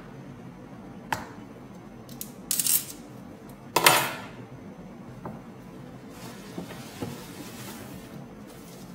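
Packaging being opened by hand: a few short scraping cuts from a plastic utility knife, a louder clatter about four seconds in as the knife is put down on the table, then soft rustling of paper and fabric wrapping as the item is lifted out.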